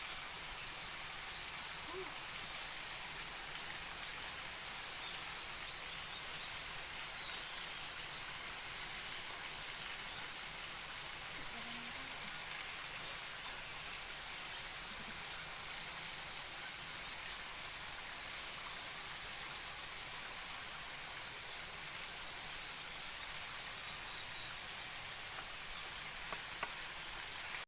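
Steady, high-pitched chorus of forest insects, a continuous shrill hiss that holds one pitch throughout with no breaks.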